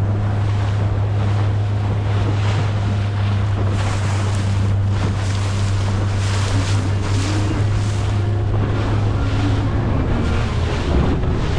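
A motorboat's engine running with a steady low drone as the boat pounds through rough, choppy sea, with repeated rushes of wave wash and spray and wind buffeting the microphone.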